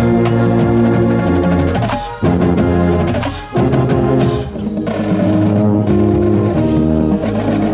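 Drum corps brass line playing a loud sustained chordal passage with percussion, the contrabass bugle close by carrying a strong bass line. The chords cut off briefly twice, about two and three and a half seconds in.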